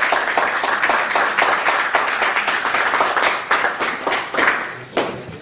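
An audience clapping, a dense round of hand claps that thins and fades out near the end.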